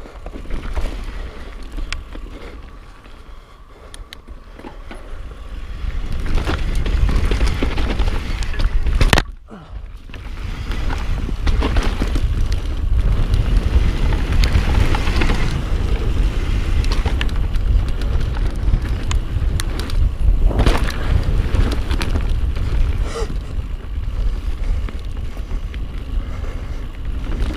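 Mountain bike descending a dirt trail at speed: wind buffets the chest-mounted microphone with a deep rumble over the noise of tyres on dirt and the rattle of the bike. It grows louder about six seconds in, with a sharp knock just after nine seconds and a brief drop in level right after.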